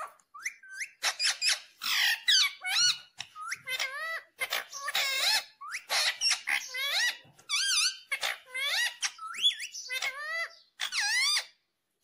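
Rose-ringed parakeet (Indian ringneck) calling and chattering: a rapid run of short, high-pitched squawks and chirps, many sweeping up or down in pitch, with brief pauses between bursts.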